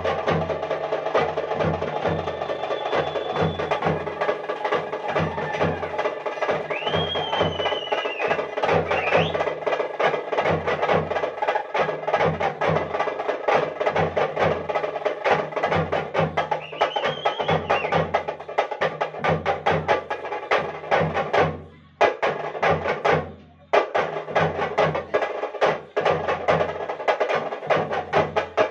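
Dappu frame drums played fast with sticks: a dense, rapid stream of sharp slapping strokes over a pulsing low boom, with steady tones underneath. The drumming cuts out briefly twice, about two-thirds of the way through.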